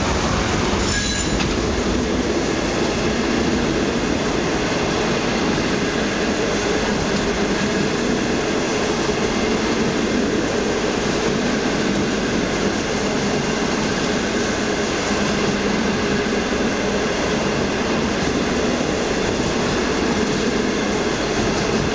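Locomotive-hauled passenger coaches rolling past, a steady, continuous sound of wheels on rails.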